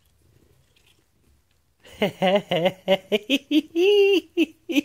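Maine coon cat chirping: a quick run of short chirps starting about two seconds in, with one longer held trill around the four-second mark.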